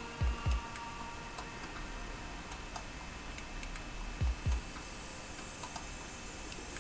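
Faint, irregular light ticking, with two pairs of short low thuds: one pair just after the start and another about four seconds in.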